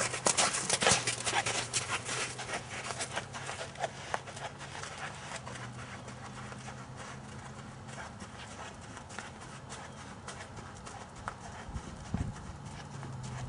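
A horse's hooves striking sand arena footing, loud for the first few seconds as it passes close by, then fainter steady walking hoofbeats as it moves away.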